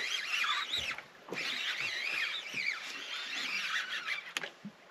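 Many overlapping high-pitched warbling squeals and chirps, with a short break about a second in. A single sharp click comes near the end.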